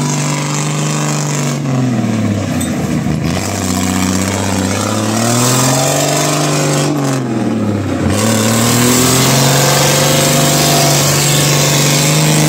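6x6 cargo truck's engine running and being revved up and down: its pitch drops about two seconds in, climbs again, dips once more past the middle, then holds steady at higher revs.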